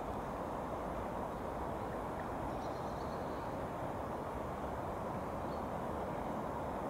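Shallow stream running over stones: a steady rushing of water.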